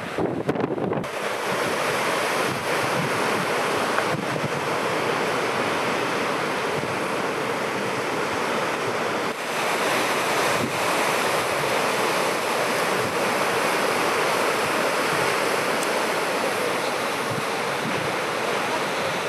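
Ocean surf breaking and washing in a steady roar of waves, with wind buffeting the microphone.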